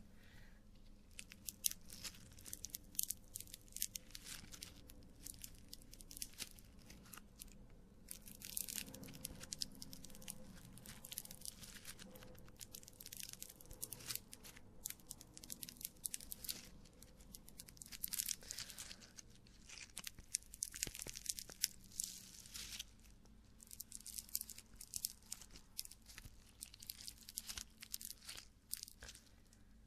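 Close-miked ASMR toy clay being squeezed and worked in the fingers, giving dense, irregular crackling and crunching in clusters.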